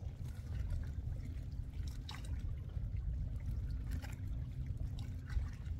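Small water sounds, light trickling and dripping, with a few short clicks and splashes about two, four, five and five and a half seconds in, over a steady low rumble.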